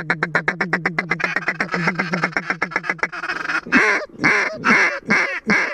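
A duck call blown to lure mallards: a fast, even chatter of about ten notes a second at one pitch, then about six louder, spaced quacks sliding down in pitch in the last two seconds.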